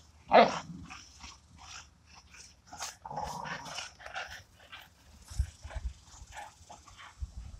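American Bully dogs play-fighting over a toy: one loud dog sound about half a second in, then many short, quieter dog noises as they wrestle.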